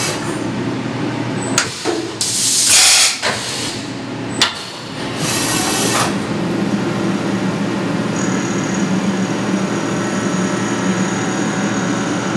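CNC vertical mill with a steady machine hum and several sharp bursts of hiss in the first six seconds. From about eight seconds in, a steady high whine as the roughing end mill cuts the 416 stainless steel recoil lug.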